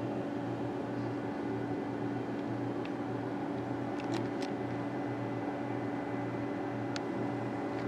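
Steady mechanical hum of indoor equipment such as ventilation, with a low tone pulsing about twice a second and a few faint clicks.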